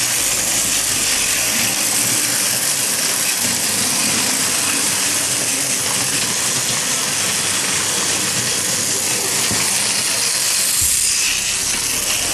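A battery-powered Plarail toy train running with its gear freshly replaced: the small motor and plastic gearbox give a steady, loud whirring hiss.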